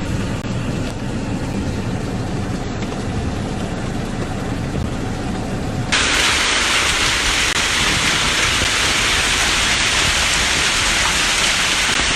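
Heavy rain pouring down in a hailstorm, a steady hiss with a deeper rumble under it. About six seconds in, a cut brings a brighter, louder hiss.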